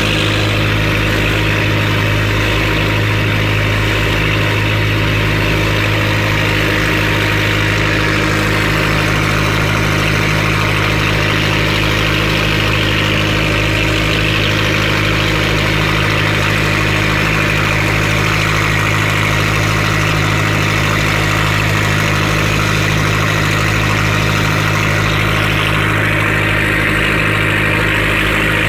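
An engine running steadily at constant speed, with a steady rushing hiss over it.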